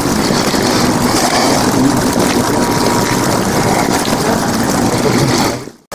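Loud, steady rumble and hiss of wind and sleet striking the camera microphone and the umbrella held over it. It cuts off suddenly just before the end.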